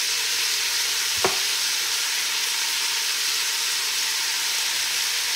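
Shrimp and chopped vegetables frying in a stainless steel pot, a steady sizzle, with a single sharp knock about a second in.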